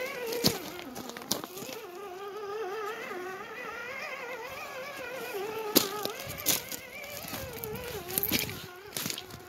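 Axial SCX10 II RC crawler's electric motor and geartrain whining as it crawls over rocks, the pitch wavering up and down with the throttle. Loose rocks clack under the tyres now and then.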